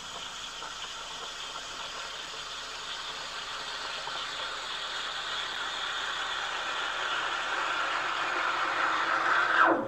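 Café coffee machine running: a steady mechanical whirring noise that slowly grows louder, then cuts off abruptly near the end.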